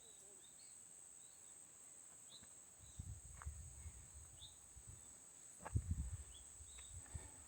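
A steady high-pitched insect chorus, with short bird chirps scattered throughout. A few low thumps come through, the loudest about six seconds in.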